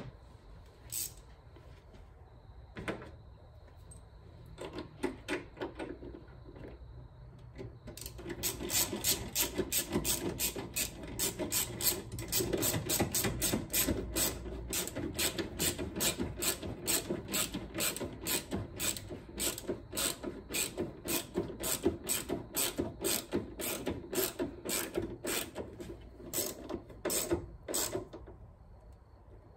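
Hand ratchet with a socket extension clicking as it runs in a small bolt: a few scattered clicks at first, then a long, steady run of quick clicks from about eight seconds in, stopping near the end.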